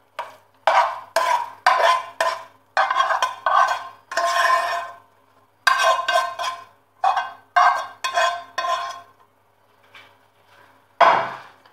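Shredded chicken filling being scraped and scooped out of a metal frying pan in quick strokes, about two a second, with the pan ringing faintly. The strokes thin out near the end, and a louder thump follows.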